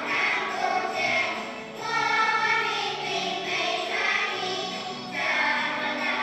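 A group of young children singing together in unison to a musical backing.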